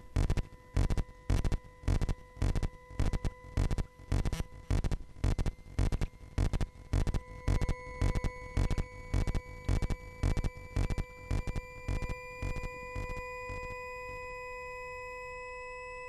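Electromagnetic fields of an electronic street information terminal made audible through induction headphones: a buzzing pulse about twice a second over several steady electronic tones, with a thin tone slowly rising in pitch from about halfway. The pulses fade out a few seconds before the end, leaving the steady tones.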